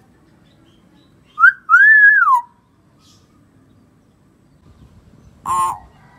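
Common hill myna whistling: a short rising note, then a loud whistle that climbs and falls back. About three seconds later comes one short harsh call.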